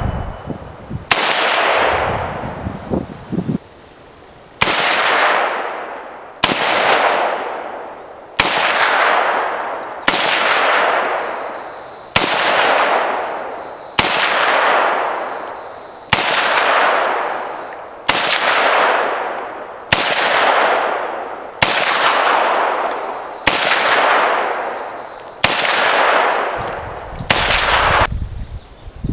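Semi-automatic AK47 in 7.62x39 fired at a slow, steady pace, about a dozen single shots roughly two seconds apart, each followed by a long echo that dies away before the next.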